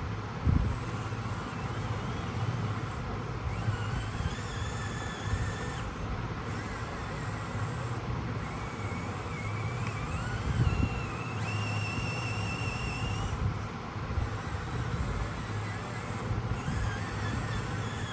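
Small electric motor and gears of a 1/16-scale RC off-road truck whining, the pitch rising and falling as it is throttled, over a steady low hum, with a few light knocks.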